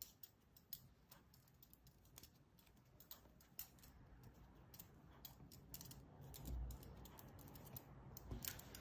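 Faint, irregular clicking and ticking of metal double-pointed knitting needles knocking together as stitches are worked, with a couple of soft low bumps from handling.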